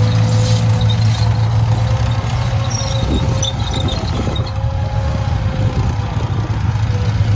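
Tank engine running steadily, a deep low hum with a fainter higher steady tone above it.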